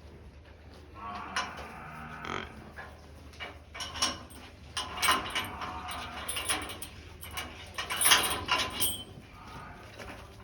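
Cattle mooing, with scattered knocks and clatter; the loudest stretch comes about eight seconds in.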